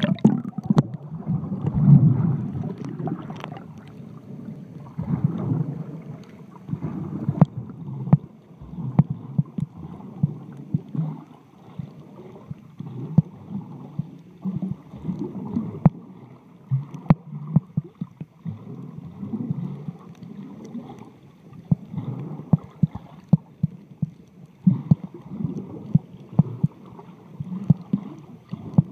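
Muffled underwater sound from a camera held below the surface while snorkeling: a low rushing of moving water that swells every two or three seconds, with many scattered sharp clicks.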